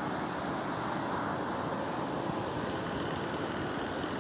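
Steady, even background rush with no distinct sounds standing out.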